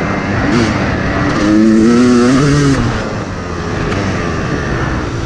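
Dirt bike engine under hard throttle on a motocross-style track, the pitch climbing and then dropping off about three seconds in as the throttle is rolled off, with steady wind rush on the helmet camera's microphone.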